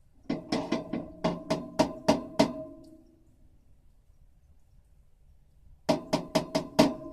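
Quick hammer blows on metal, about four a second, each leaving a short ringing note. About nine blows, a pause of about three seconds, then another run of blows near the end.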